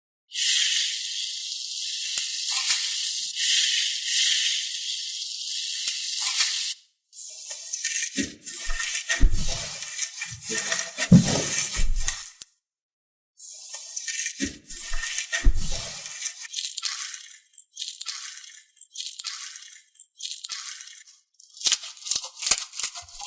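Crunchy slime being squeezed and pressed by hand: dense crackling in several long stretches, with soft low squelches and thuds mixed in through the middle.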